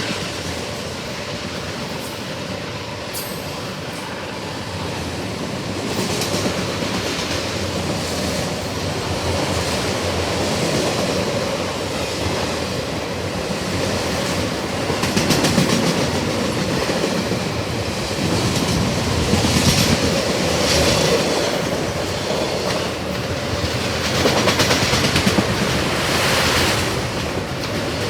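Long CSX autorack freight train rolling past, steel wheels clacking over the rail joints, the noise swelling and easing as the cars go by.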